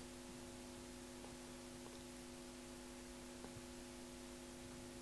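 Near silence: a faint, steady hum of several tones over a soft hiss, the room tone of the hall's sound system.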